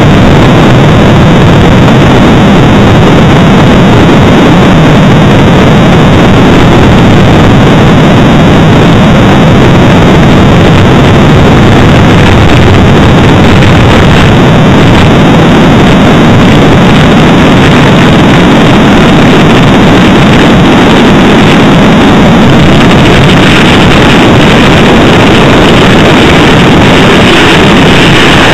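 Airbus A380 jet engines running with a loud, steady noise, close enough to overload the recording, with a little more hiss in the last few seconds.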